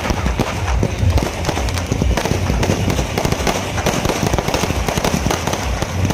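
Aerial fireworks display in a dense, continuous barrage: rapid overlapping bangs and crackles of shells bursting, with no pause between them.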